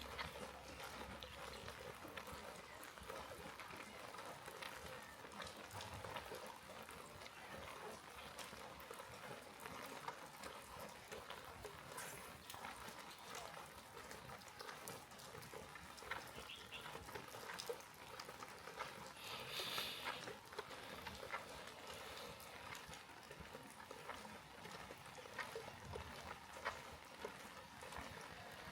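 Steady rain, with many irregular drops pattering and dripping. A brief, higher-pitched sound comes about twenty seconds in.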